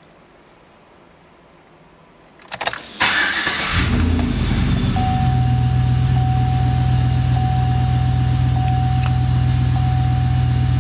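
2007 Chevrolet Silverado's engine started: a couple of clicks, a short burst of starter cranking about three seconds in, then the engine catches and settles into a steady idle. A steady chime tone with a short break about once a second sounds over the idle.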